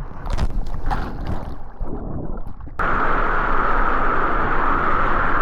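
Water splashing and sloshing around a rider on a waterslide for nearly three seconds. Then the sound cuts off suddenly into a steady rushing noise.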